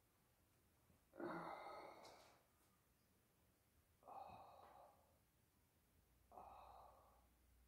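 A person exhaling audibly three times, each breath lasting about a second, spaced roughly two and a half seconds apart; the first is the loudest.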